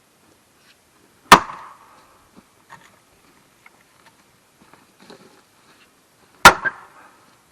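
Two sharp axe strikes into a wood block, about five seconds apart, each with a brief ringing tail. In the two-axe splitting technique, each blow driven in on one side loosens the other axe stuck in the block.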